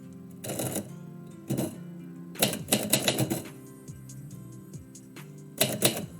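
Typewriter keys striking in short bursts of keystrokes, with a longer rapid flurry in the middle and another burst near the end. Instrumental music plays underneath.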